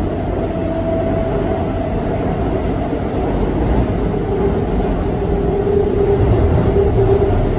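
Seoul Subway Line 2 train running, heard from inside the car: a steady rumble of wheels on rail with a humming tone that grows stronger about halfway through.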